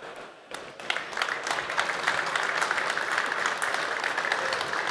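Audience applauding: many hands clapping, starting about half a second in and going on steadily.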